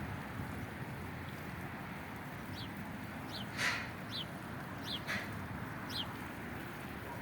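A bird giving short, falling chirps, about five of them spread over a few seconds, with two louder short rasping calls among them, over a steady low rumble of riding and wind.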